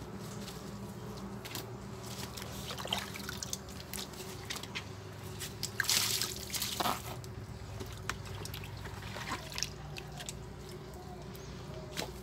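Water splashing and dripping as wet fish are handled on mud, with a louder splash of water from a bucket about six seconds in, over a steady low hum.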